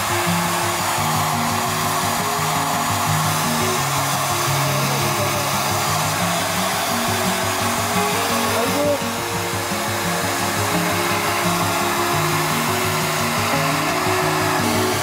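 Hand-held hair dryer running steadily, with background music over it.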